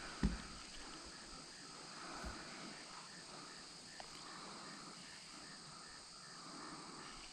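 Insects buzzing steadily at a high pitch, with a faint chirp repeating about three times a second. A short dull thump, the loudest sound, comes just after the start, and a softer one about two seconds in.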